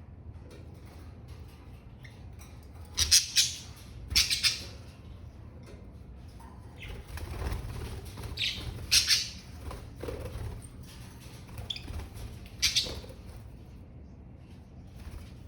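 Pet budgerigars fluttering their wings in several short, loud bursts, over a steady low hum.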